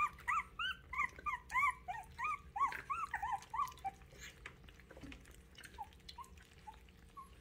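Puppy whining in a quick run of short high whines, each rising then falling, about three a second for the first four seconds, then a few fainter ones later on. Faint clicks of puppies eating dry kibble from a steel bowl sound underneath.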